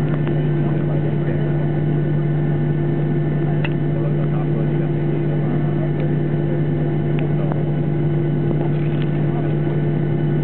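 Steady cabin drone inside a Boeing 737-800 taxiing slowly after landing, its engines at idle: an even low hum with a second, higher tone held steady.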